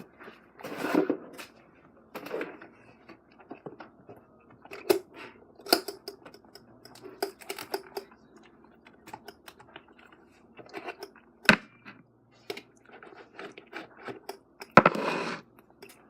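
Small plastic toys and containers being handled: irregular clicks, taps and rustles, with a couple of sharp knocks and a brief louder rustle near the end.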